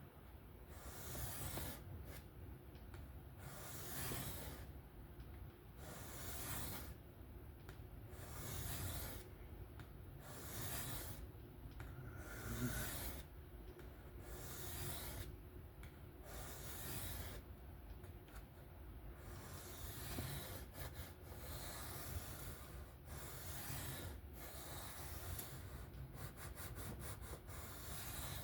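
Steel knife blade being stroked freehand across a 1200-grit sharpening stone: a rasping scrape repeated about once every second and a bit, then quicker, shorter strokes in the last third, as the edge is honed to match its existing angle.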